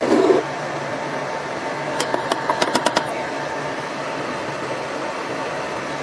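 Laser cleaning machine running steadily with a fan-like hum and a faint high whine. A short louder sound comes at the very start, and a quick run of sharp snaps about two to three seconds in.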